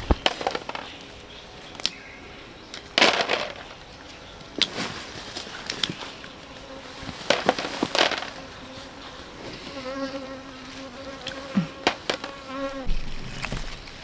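A flying insect buzzing close by with a steady drone for about three seconds in the second half, amid scattered sharp clicks and rustles.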